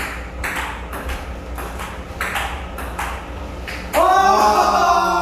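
Table tennis rally: the celluloid ball clicks sharply off the paddles and table, about two hits a second. About four seconds in, a loud, sustained voice, singing or chanting, cuts in.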